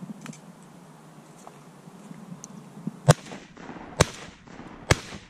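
Three shotgun shots fired in quick succession, about a second apart, each a sharp loud crack with a short echo off the marsh.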